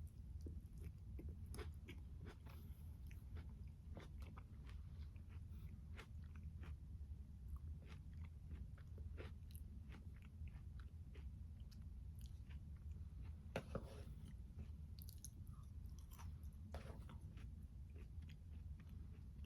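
Close-miked chewing and biting of tomato, peach and basil salad: irregular small mouth clicks and crunches, with one louder bite about two-thirds of the way through.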